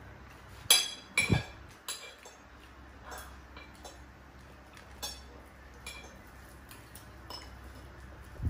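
Dishes and cutlery clinking at a meal table: two sharp clinks with a knock about a second in, then lighter scattered clinks every second or two.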